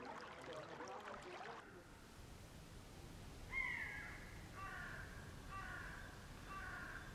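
A bird calling: one loud falling call, then three shorter calls about a second apart.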